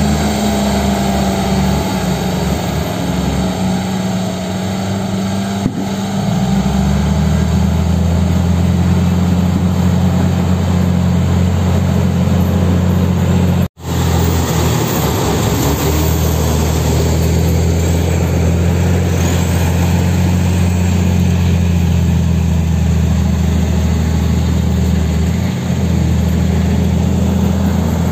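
Diesel engines of loaded light dump trucks running hard as they crawl through slippery mud, a steady low drone whose note rises about six seconds in. The sound drops out for an instant about fourteen seconds in, then the drone carries on.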